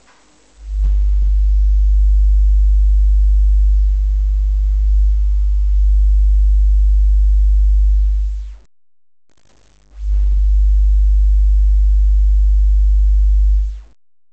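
Very deep, steady bass tone from Cerwin-Vega subwoofers, in two long blasts: one starting about half a second in and stopping after about eight and a half seconds, the second starting at about ten seconds and stopping just before the end.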